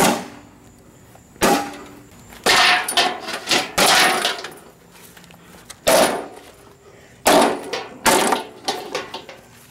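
A push lawnmower being smashed: about ten loud, irregular metal clangs and crashes, some ringing briefly after the strike.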